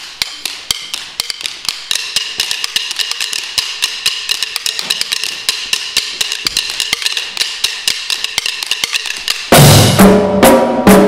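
Marching drum line playing a fast, even pattern of sharp wooden stick clicks, about six a second, slowly growing louder. About nine and a half seconds in, the full line comes in loudly on the drums, with pitched bass drums and snares.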